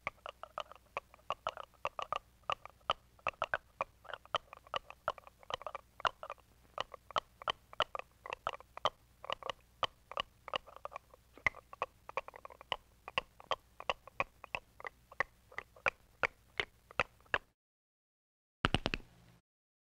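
Cartoon chewing sound effect: rapid crunching bites, about four a second, stopping about 17 seconds in, followed by a short burst of noise near the end.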